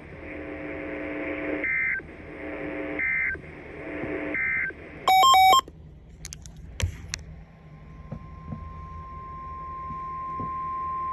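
Weather-radio alert signalling between two broadcast warnings. First come three repeated bursts of data tones. About five seconds in there is a short, loud burst of stepping touch-tone-like tones, then a few clicks. From about eight seconds in a single steady tone holds until the next message.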